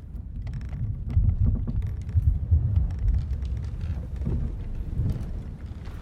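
Ship-at-sea ambience: a low rumble of sea and hull that swells and eases, with scattered small wooden creaks and ticks over it.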